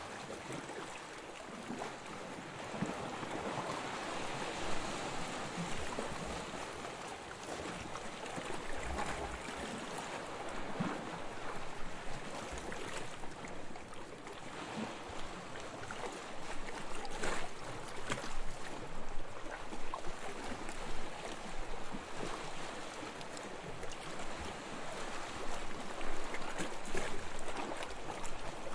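Gentle waves washing onto a beach: a steady wash of surf that swells and eases slightly, with small crackles of water running over sand.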